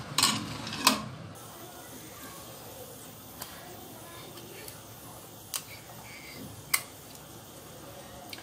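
Steel spoon clinking twice against a ceramic plate while stirring salt into water. This is followed by a quiet stretch broken by three isolated sharp clicks.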